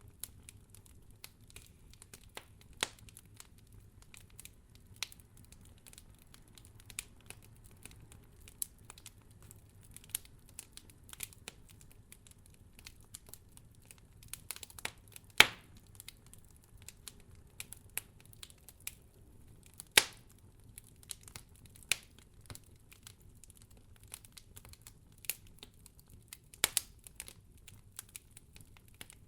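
Fire crackling: irregular sharp pops and snaps over a faint low rumble, with the loudest pops about fifteen and twenty seconds in.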